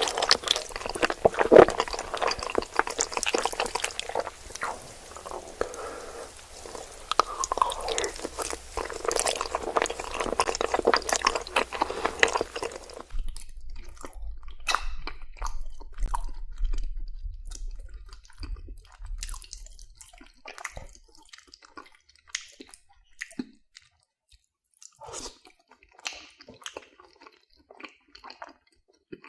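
Close-up chewing of macaroni and cheese: wet, squishy mouth sounds. Dense, continuous chewing for roughly the first half, then sparser separate wet clicks and smacks that grow fainter toward the end.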